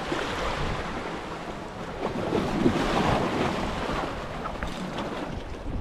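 Sea surf washing against the shore rocks, with wind buffeting the microphone; the rush swells about two seconds in and eases off again.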